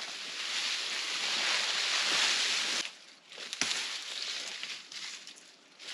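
Cut branches and brush rustling and scraping as they are dragged and tossed aside: a long swish that builds for about three seconds and stops abruptly, then a single sharp crack, then quieter rustling.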